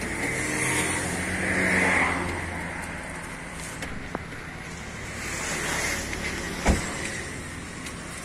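Motor vehicles passing on the road: an engine hum swells and fades in the first two seconds, and another vehicle goes by about five to six seconds in. A single sharp thump comes about two-thirds of the way through.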